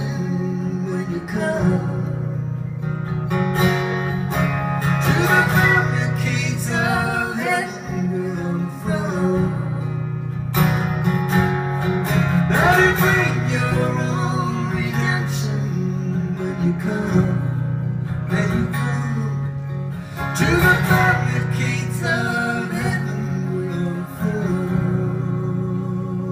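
Acoustic guitar strummed steadily in a live folk-rock ballad, with a melody line coming over it in short phrases.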